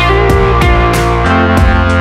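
Background music with guitar over a bass line and a steady beat.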